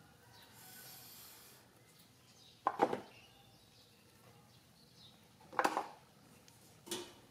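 Three short sharp knocks against a quiet background, about 3 s, 5.7 s and 7 s in, the middle one the loudest, with a soft rustle about a second in.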